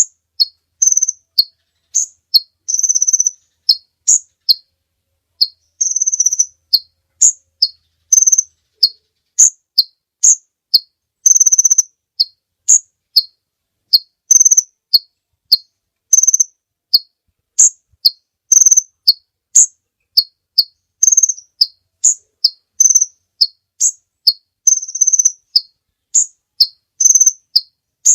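Kolibri ninja sunbird calling vigorously: a fast series of sharp, high chips about two a second, broken several times by longer, slightly buzzy notes.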